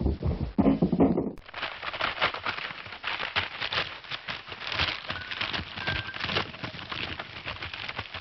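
Cartoon sound effect of dense crackling and crunching, a rapid irregular run of small clicks and snaps, after a short lower-pitched sound in the first second or so.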